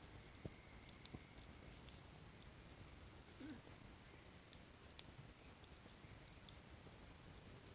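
Campfire of softwood (conifer) firewood burning, crackling faintly with sparse, irregular sharp pops.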